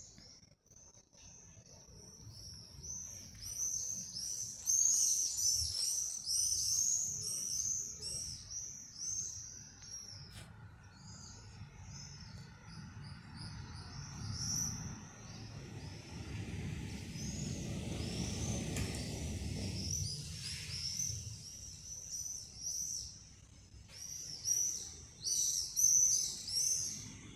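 Small songbirds chirping and singing in bouts of quick, high notes. A low rumble swells in the middle and fades again.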